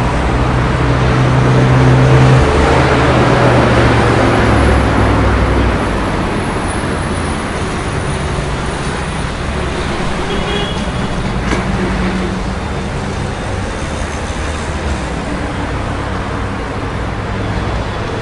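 City street traffic: a steady wash of cars and buses going by, with the low engine drone of a large vehicle loudest in the first few seconds before the noise settles a little.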